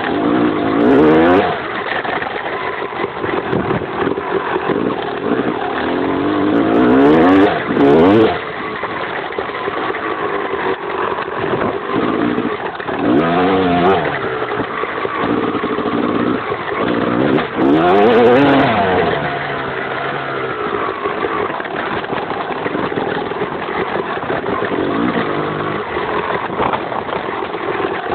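Honda enduro motorcycle engine revving up and down as the bike is ridden, rising sharply in pitch several times under throttle and dropping back between. It is heard from a camera mounted on the swingarm.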